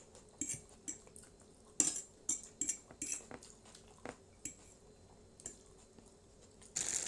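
Fork and chopsticks clicking and scraping against plates, with chewing and slurping of noodles, as irregular short ticks. A louder rustling noise starts just before the end.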